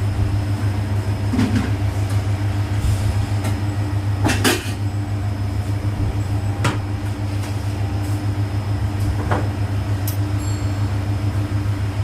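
Siemens iQ700 washing machine spinning with a replacement drum fitted, a steady hum with a few short clicks or knocks, the strongest about four and a half seconds in. The spin is a test run after the old drum, which made noise in the 1200 rpm spin, was swapped out.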